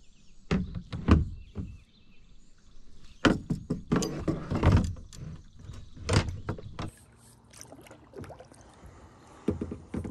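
Irregular knocks and bumps against a fishing kayak's hull as gear and paddle are handled, most frequent about three to five seconds in.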